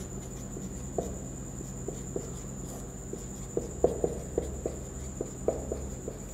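Marker pen writing on a whiteboard: short squeaks and taps of the felt tip, scattered at first and coming faster from about three and a half seconds in, over a steady background hum.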